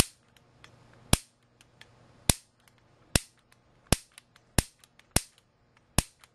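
Piezo gas grill igniter snapping eight times at uneven intervals of about a second or less. Each snap is a spark fired into a multimeter's test lead in a static-discharge test.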